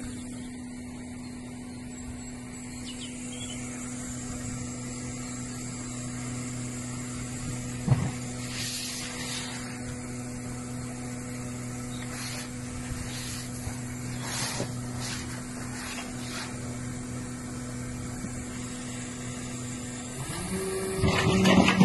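Rear-loader garbage truck's diesel engine idling with a steady hum, with a single sharp knock about eight seconds in and a few brief rustles and scrapes after it. Near the end the engine note changes and grows louder as the truck speeds up for the compactor cycle.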